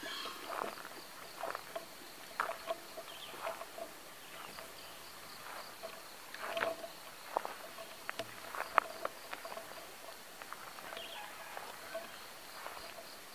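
Wild junglefowl crowing amid irregular rustles and sharp clicks of movement through grass, over a steady pulsing chirr of insects.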